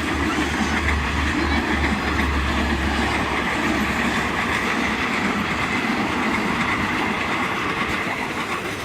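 A passing train's wheels running on the rails with a steady loud rumble, easing off slightly near the end.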